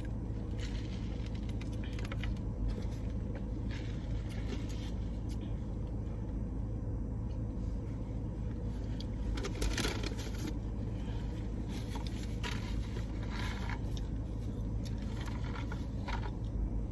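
Steady low hum of a car cabin with the engine running, with short rustles and scrapes of food packaging now and then, the most noticeable about ten seconds in.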